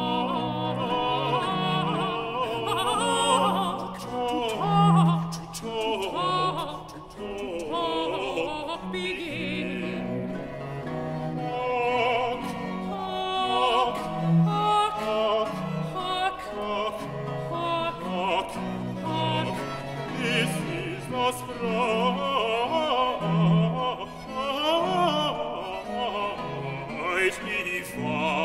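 Baroque vocal duet: countertenor and baritone singing together with two recorders over a continuo of cello and double bass, the bass line moving in separate, evenly paced notes, in the reverberant acoustic of a large stone church.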